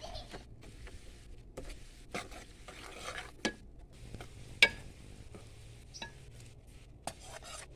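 Metal spoon stirring food in a cooking pot, scraping and knocking against the pot at irregular intervals, with one louder ringing clink about halfway through.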